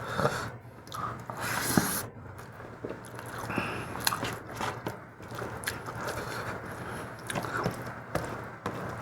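Close-up eating sounds: wet chewing, lip-smacking and biting of fatty mutton and rice, with irregular clicks and smacks throughout.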